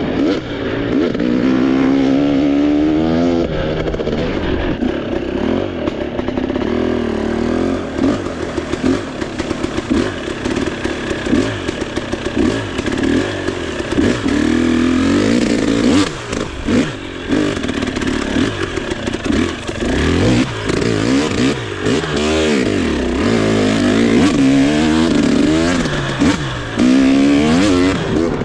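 Off-road trail motorcycle engine running under load, its pitch rising and falling again and again as the throttle opens and closes.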